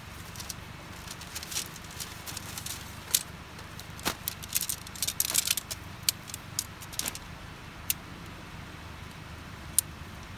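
Tent poles of a single-wall mountaineering tent being handled and fitted together on dry grass: scattered sharp metallic clicks and short rattles, busiest about four to six seconds in, over a steady low background noise.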